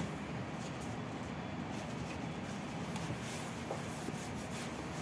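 Paper towel rubbing across a nonstick baking tray, spreading olive oil over the base: a steady rubbing hiss.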